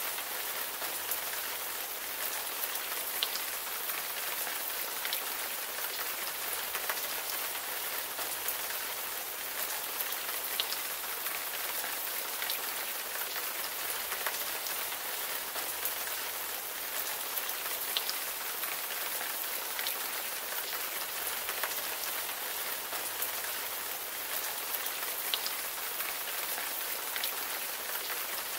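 Steady rain falling, an even hiss with a few single drops standing out now and then.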